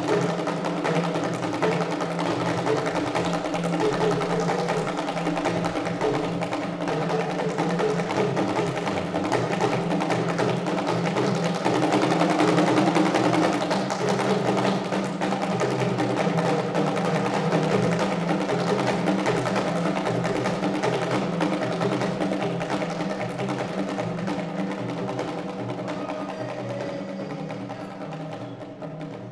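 A Yoruba drum ensemble plays a fast, dense rhythm on small hand-held drums, easing off in loudness near the end.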